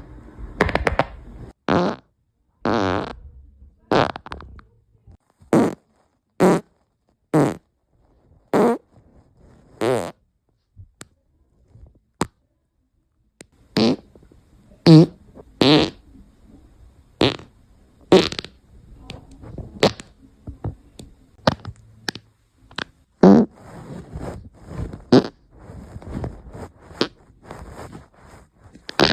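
A string of about two dozen short human farts, one after another, mostly under a second each, several with a buzzing pitch. There is a lull of a few seconds midway, and the farts come closer together near the end.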